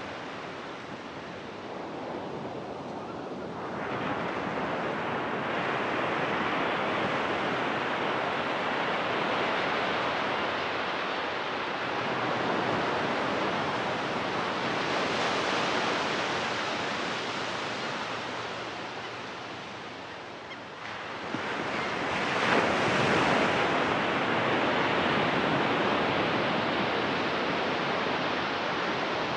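Ocean surf breaking and washing up the beach: a steady wash that swells with each breaking wave, the biggest break coming about two-thirds of the way through.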